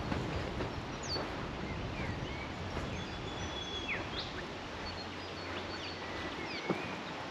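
Several birds calling in rainforest: short whistled notes and chirps, some sliding up or down in pitch, with one longer held whistle about three seconds in, over a steady background hiss. A single sharp tick near the end.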